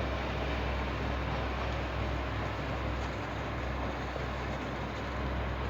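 Steady background hiss with a constant low hum, with no distinct clicks or tones.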